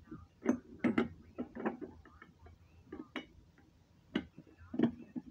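Irregular clicks and knocks from hands working fire alarm equipment as it is being reset, about nine in all, loudest about half a second and a second in and again near the end.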